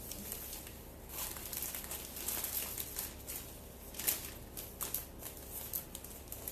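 Florist's wrapping paper around a flower bouquet crinkling and rustling in irregular bursts as it is handled, with a sharper crinkle about four seconds in.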